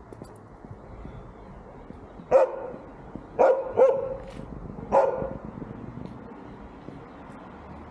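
A dog barking: four short barks over about three seconds, starting a couple of seconds in.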